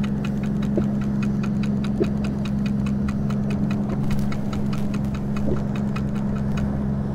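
Waverunner engine idling with a steady low hum, over an even light ticking about four times a second that stops near the end.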